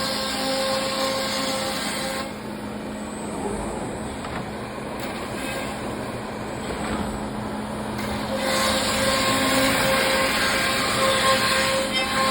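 Thermwood CNC router cutting plywood: a steady, loud cutting noise with a constant tone in it, which drops to a quieter hum from about two seconds in and comes back loud at about eight and a half seconds.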